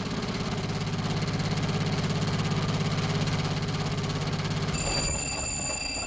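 A hand-worked radio sound-effects device, a wooden flap rattled rapidly against a block, putting out a steady chugging engine rattle that stands for an old jitney bus's motor running. Near the end a high, steady ringing comes in, a telephone's ring.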